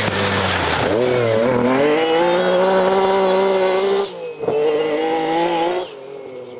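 Lancia Stratos rally car's V6 engine running hard at high revs. The pitch dips about a second in, then climbs and holds; the engine drops away briefly around four seconds in, picks up again, and falls to a quieter note near the end as the car lifts off.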